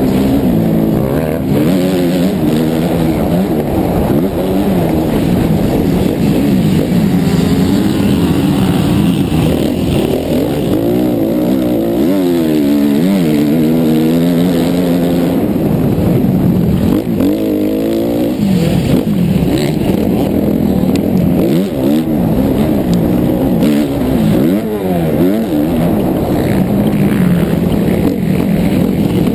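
Suzuki RM-Z motocross bike's four-stroke single-cylinder engine at race pace, heard on board, revving up and dropping back over and over as the rider accelerates, shifts and rolls off around the track.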